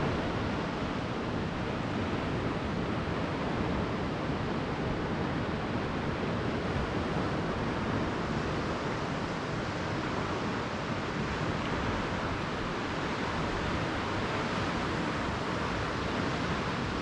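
Surf washing onto a sandy beach, a steady unbroken rush of noise.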